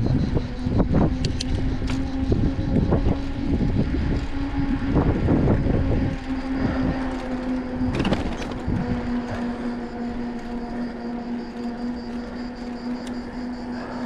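Riding a loaded bicycle on an asphalt path: wind buffeting the microphone and tyre rumble, strongest for the first six seconds and easing after, with a steady low hum underneath and a short clatter about eight seconds in.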